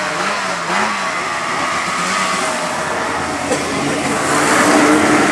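Snowmobile engines revving, their pitch wavering up and down, growing louder about four seconds in.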